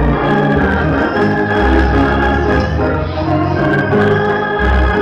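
Organ playing loud, held chords over bass notes that change every second or two.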